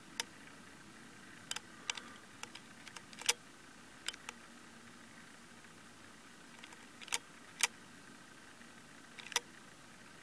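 About a dozen sharp clicks and knocks at irregular intervals, a few of them doubled, over a faint steady hiss.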